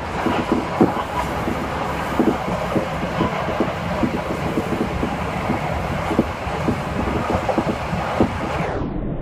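Hankyu Railway train running along the Kyoto Line: a steady rumble and rush of running noise with irregular clicks and knocks from the wheels on the track. Near the end the sound turns dull as the high end drops away.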